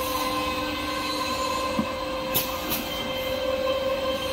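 XY-AI-280 automatic log saw cutting machine running, a steady mechanical whine with several held tones. Two sharp clicks come close together a little past halfway.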